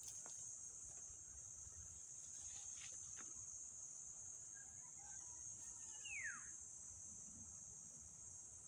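Steady high-pitched drone of insects in the vegetation, with a single falling whistle about six seconds in.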